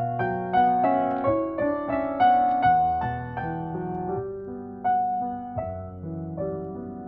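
Slow, tender piano melody of single struck notes over soft chords, about two notes a second, getting quieter toward the end.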